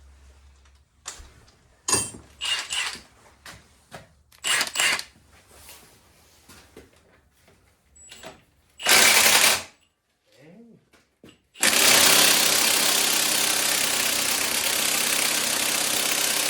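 Tools clattering and knocking as they are handled, then a power tool run in a short one-second burst about nine seconds in and again steadily for about five seconds near the end.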